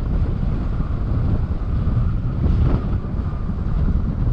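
Wind buffeting the microphone of a bonnet-mounted camera as a Mazda CX-9 drives over sand, with a steady low rumble from the car underneath.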